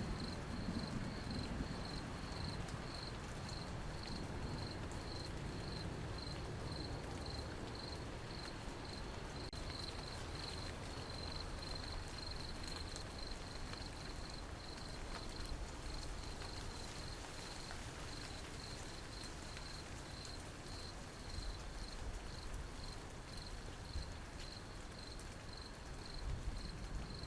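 A cricket chirping steadily in an even, pulsing rhythm over a soft, constant hiss of rain. A low rumble of thunder dies away in the first second or so.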